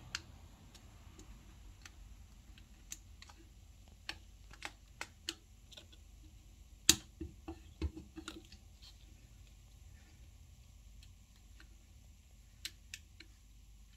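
Scattered small clicks and taps from hands handling a TV panel's ribbon cables and their plastic connectors, irregular and fairly quiet, with one sharper click about seven seconds in.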